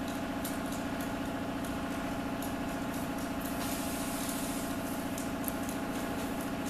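A steady mechanical hum with a fast, even pulse, like a motor running, with a few faint light clicks over it.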